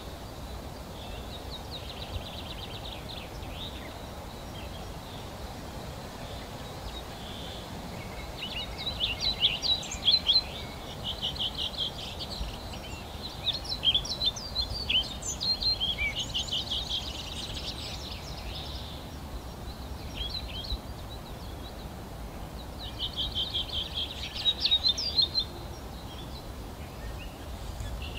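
Small songbirds singing, with quick chirps and trills that are sparse at first and come in dense bursts from about a third of the way in until near the end. Under them is a steady low background noise.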